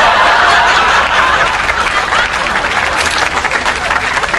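Studio audience laughing loudly, with clapping joining in about two seconds in.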